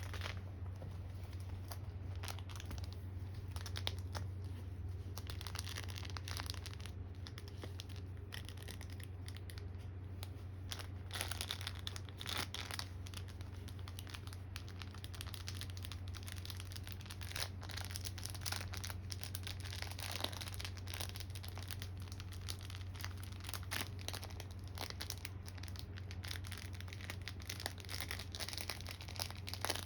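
A dog chewing and tearing at a new toy, giving irregular crinkling, rustling and ripping sounds, over a steady low hum.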